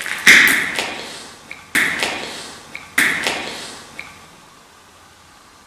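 Three loud bangs about a second and a half apart, each ringing and echoing away slowly through the empty factory building, with a few small ticks between them. The speaker calls them very strange sounds.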